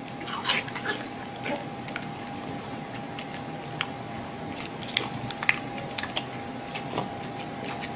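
French bulldog chewing as it eats, a scatter of small sharp clicks and smacks, over a steady faint tone.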